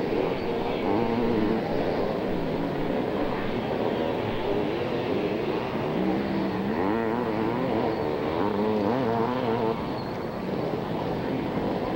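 Several 500cc two-stroke motocross bikes racing, their engines revving up and down in overlapping notes that rise and fall. The revving is clearest a little past halfway.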